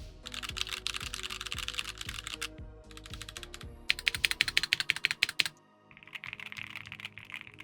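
Typing on an Akko MU01 mechanical keyboard: fast runs of key clacks in several bursts, the sharpest and loudest about four to five and a half seconds in, over background music.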